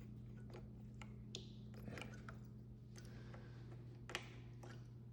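Faint, scattered light clicks and taps, about a dozen irregularly spaced, over a steady low hum.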